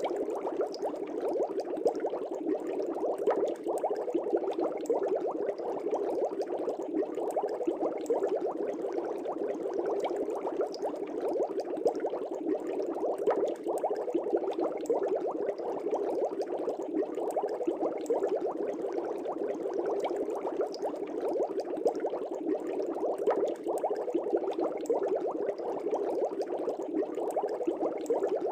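Aquarium air bubbles rising and breaking at the surface in a steady, dense bubbling, with many small pops.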